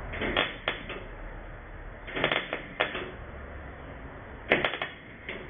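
MIG welder laying three short tack welds on a thin sheet-steel firewall patch panel, each a crackling burst of under a second with short pauses between, and a brief fourth crackle near the end.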